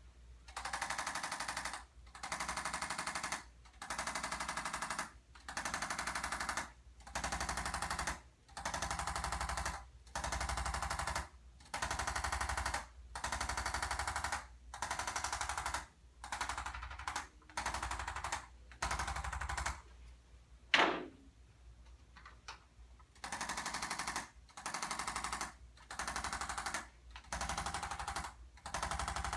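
Electric percussion massager run in repeated bursts of rapid pulsing, each about a second and a half long with short pauses between, worked over a patient's back muscles. About 21 seconds in there is one sharp knock and a brief lull, then the bursts start again.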